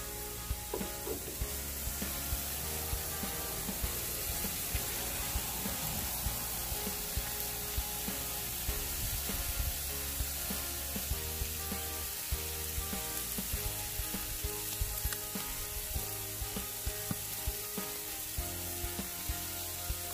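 Marinated steak sizzling on a grill over a fire, with a steady hiss and frequent sharp pops. Background music with a steady bass line plays along with it.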